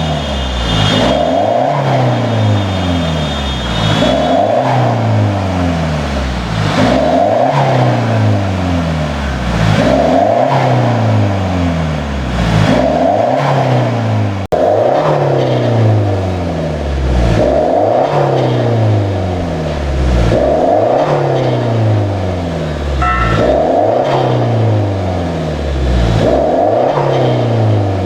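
Kia Sportage QL with a custom straight-piped dual exhaust, its engine revved over and over, the pitch climbing and dropping about every two seconds.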